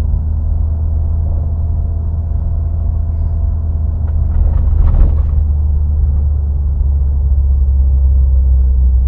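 Steady low rumble inside the cab of a 1991 Toyota Hilux YN85R pickup under way: its 1.8-litre four-cylinder engine and road noise. A brief louder noise about five seconds in.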